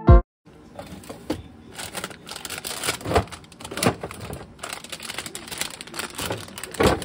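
Hands rummaging in a refrigerator drawer: plastic packages of cheese and deli meat crinkling and rustling, with scattered clicks and knocks of plastic containers and shelves. A short thump comes right at the start.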